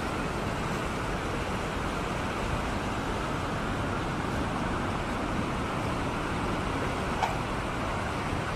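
Rain-swollen, muddy river rushing over rocks as whitewater: a steady, very strong rush of water.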